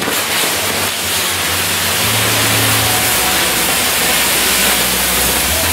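Spinning Maltese ground-firework wheel (nar tal-art), its firework jets burning with a loud, steady hiss and a few crackles near the start.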